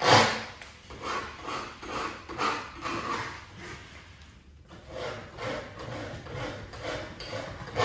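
A cotton towel handled and rubbed over a sheet of soaked printmaking paper to blot off excess water, in a string of short rubbing swishes with a brief lull a little past halfway.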